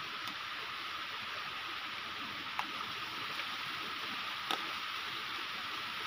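Steady rush of a small waterfall splashing onto rocks and running down a shallow stream, with two brief sharp clicks in the middle.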